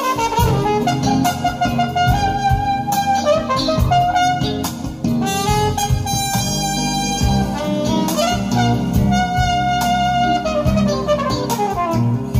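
A jazz recording playing from a vinyl record: a horn carries a melody of long held notes over bass and drums.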